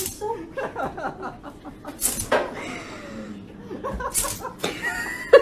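A French bulldog hiccuping: short, sudden hics repeating every second or two, while a person laughs quietly.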